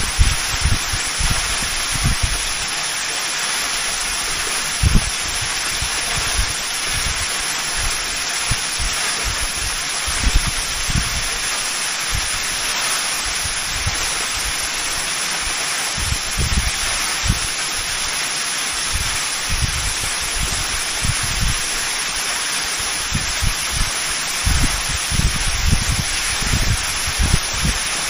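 A 72-metre, three-tiered waterfall, its water falling with a steady, even rush. Irregular low thumps from wind buffeting the microphone come and go, most often near the end.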